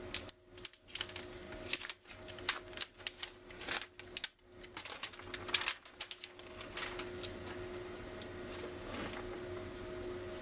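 Irregular small clicks and taps of plastic laptop screen parts being handled and fitted, many for the first six seconds or so, then only a few.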